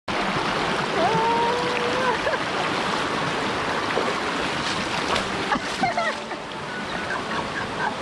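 Steady rush of fast-flowing water in a rain-fed stream.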